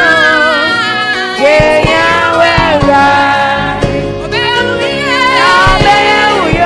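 A girl singing a gospel song, with long held notes that waver and slide between pitches.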